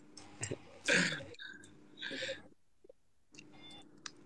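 A man's short, non-speech vocal sounds, a throat clear and breathy noises, in a few brief bursts.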